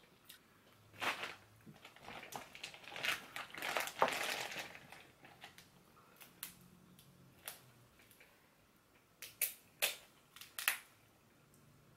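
Snow crab leg shells being cracked and snapped apart by hand. A run of crackling comes about two to five seconds in, then several sharp snaps near the end.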